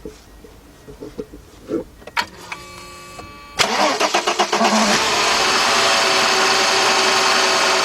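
1997 Mercedes-Benz E320's straight-six engine started: a few faint clicks, the starter cranks briefly, and the engine catches about three and a half seconds in, then idles steadily. It runs smoothly with no misfire, the cylinder 6 misfire cured by a new ignition coil.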